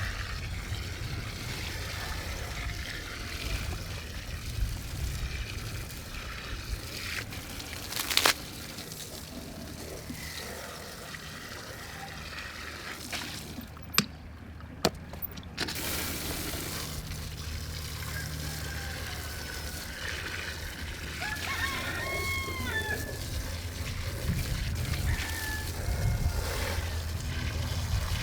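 Rooster crowing once, about two-thirds of the way in, over a steady low rumble. A few sharp clicks or knocks come earlier.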